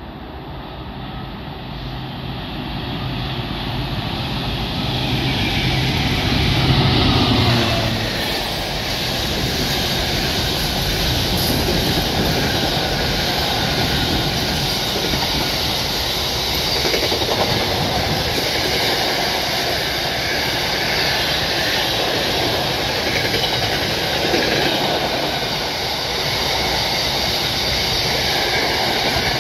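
Class 66 diesel freight locomotive, with its two-stroke EMD V12 engine, approaching and passing at speed with a steady engine drone that grows loudest about seven seconds in. Then a long intermodal train of container wagons rolls past, with the continuous sound of steel wheels on the rails.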